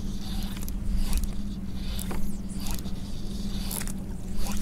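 Fly line zipping through the rod guides and swishing through the air during false casts: several brief rasping strokes.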